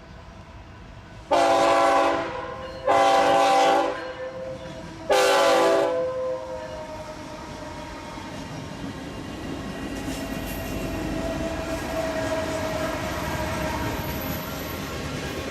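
BNSF ET44C4 diesel locomotive's multi-chime air horn blowing three short chord blasts in quick succession, a horn show. After the last blast the rumble of the approaching freight train's engines and wheels builds steadily.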